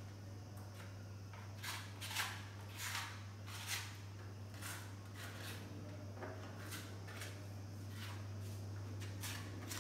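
A hand scraper pressing and scraping wet grout into the joints of a terracotta brick-tile wall cladding, in short, irregular strokes, about ten of them. A steady low hum runs underneath.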